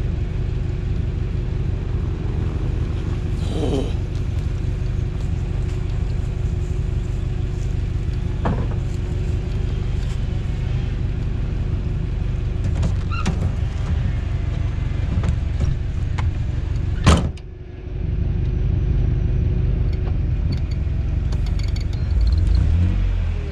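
Toyota truck's engine running at low speed offroad, with a faint steady whine above it and scattered creaks and clicks. A sharp knock about 17 seconds in, after which the sound briefly drops away, and the engine revs up near the end.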